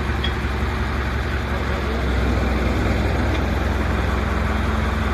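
A steady low mechanical hum with a noisy rush above it, which gets a little louder about two seconds in.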